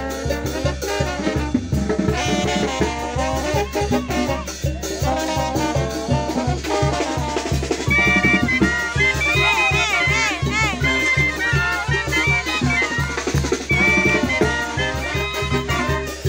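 Upbeat dance music with brass and drums over a steady beat. The brass lines waver in pitch and are loudest from about halfway through.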